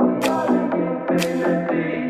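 Background music with a steady beat, a sharp stroke about once a second over held pitched notes.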